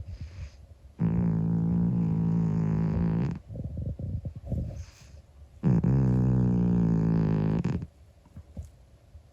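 Elderly calico cat snoring loudly: two long, pitched snores of about two seconds each, with softer fluttering breaths between them.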